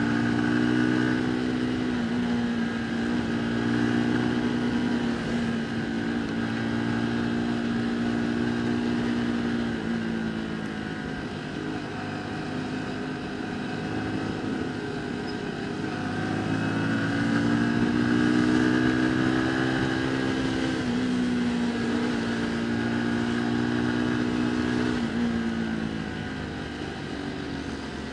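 Motorcycle engine running on the move, its pitch holding steady and then falling several times and climbing again about halfway through as the throttle changes, over steady road and wind noise.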